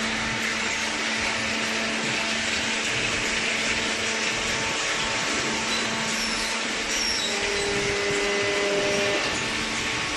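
Large hydraulic cardboard baler running: a steady machine noise with a low hum and a few faint whining tones.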